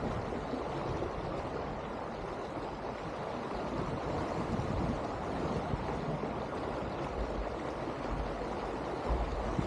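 Steady rush of water along the hull of an Elan 310 sailboat under sail, with wind buffeting the microphone as a low rumble near the end.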